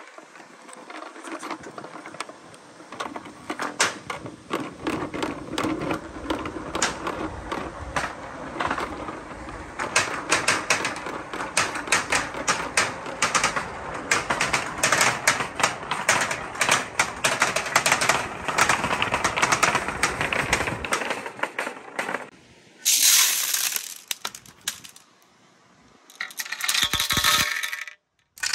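Many small plastic balls rolling and clattering down a clear plastic tube, a dense run of quick clicks and knocks that lasts about twenty seconds. After a pause comes a short loud hiss, and near the end a ringing whir that cuts off suddenly.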